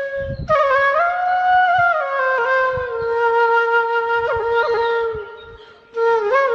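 Background music: a solo wind-instrument melody of long held notes with small pitch bends and ornaments. The phrase fades out about five seconds in and a new one begins about a second later.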